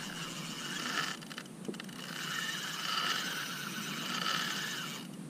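A spinning reel's drag whirring steadily as a hooked fish pulls line off in a run; the whine swells in the middle and fades out shortly before the end.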